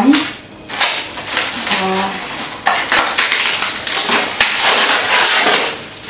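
Packaging being handled: crinkling, rustling and knocking of plastic, paper and cardboard as a new microwave is unpacked, with a brief hum of voice about two seconds in.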